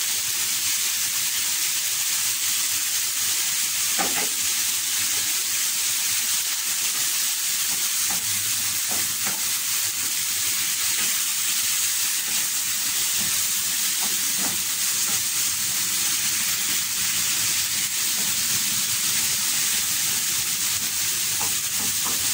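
Sliced bitter gourd, tomato and onion sizzling steadily in oil in a nonstick frying pan while being stirred with a wooden spatula, which knocks and scrapes against the pan now and then.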